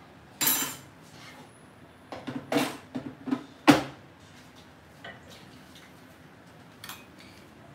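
Metal spoons and kitchen utensils clattering as a larger spoon is fetched. There are a few sharp clinks about half a second in, a cluster around two and a half seconds, and the loudest knock just before four seconds, then only faint ticks.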